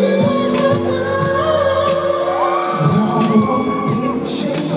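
Live pop concert music: a dance-pop song with singing over a steady beat, played through the hall's sound system.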